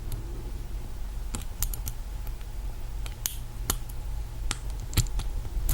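Lock pick and tension wrench clicking in the keyway of a Master Lock lockout padlock during single pin picking: about eight sharp, scattered ticks over a low steady hum.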